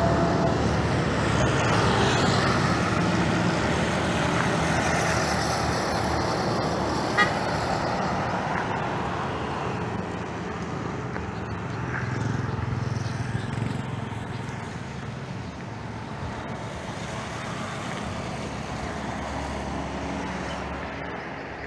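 Road traffic passing on a highway, a steady rushing noise of vehicles that slowly fades, with a short horn toot about seven seconds in.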